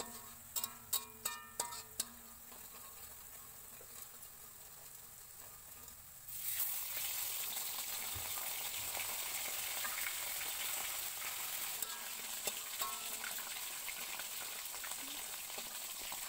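Chopped onion sizzling in hot oil in a wok as a spatula stirs it. The sizzle jumps abruptly louder about six seconds in and then holds steady.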